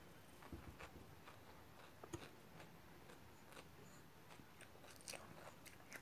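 Faint chewing close to the microphone: scattered small clicks and soft crunches of a mouthful of food being eaten.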